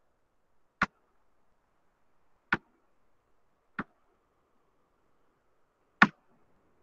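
Four short, sharp clicks or knocks at uneven intervals, the last one the loudest, over a faint background hiss.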